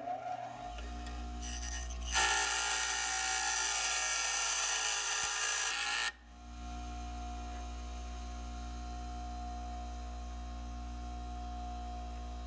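Bench grinder running. Its motor hum settles about half a second in, then a hand-held part is pressed against the grinding wheel for about four seconds, a loud harsh grinding that stops abruptly, after which the grinder spins freely with a steady hum.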